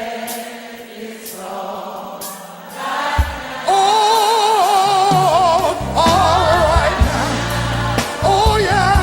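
Church choir and congregation singing a gospel chorus with a band. It is softer for the first few seconds, with sharp beats about once a second. About three and a half seconds in it grows loud, as a strong lead voice with wide vibrato soars over heavy bass and drums.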